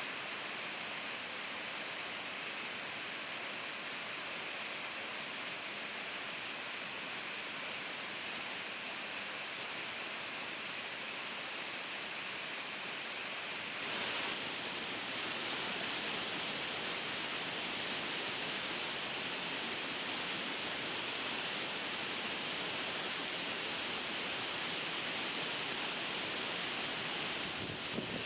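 Sobetsu Falls, an 18 m waterfall, giving a steady, unbroken rush of falling water. It grows a little louder and brighter about halfway through.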